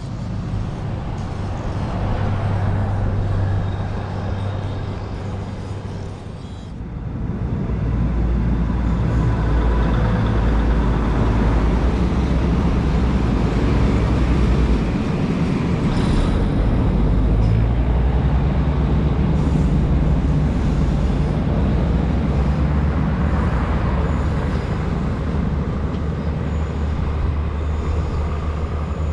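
Diesel engine of a rail vehicle running close by: a loud, steady low drone that dips briefly around six seconds in and grows louder again from about eight seconds.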